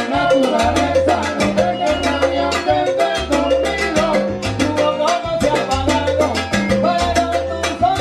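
Live salsa band playing, with a repeating bass line, congas and other hand percussion, and a lead vocal over the top.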